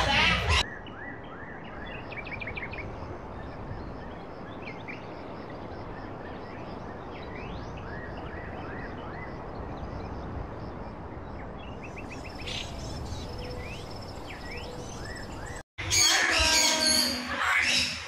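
Many quick, high, rising chirps from small birds over a steady background hiss. After a brief cut out near the end, a louder, voice-like stretch follows.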